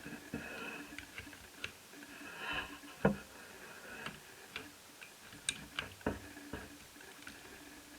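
Irregular small clicks and taps from tools and plastic and metal netbook parts being handled during reassembly, with one sharper knock about three seconds in.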